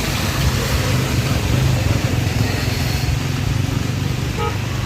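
A motor vehicle's engine running close by with a steady low hum, over a constant hiss of rain.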